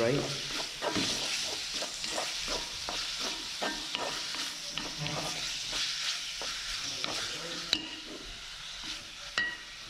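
Diced chicken and onion sizzling in hot oil in a metal pan while a wooden spoon stirs and scrapes, making a quick run of short scrapes and knocks. The stirring stops and the sizzle quietens over the last couple of seconds, with a couple of sharp clicks near the end.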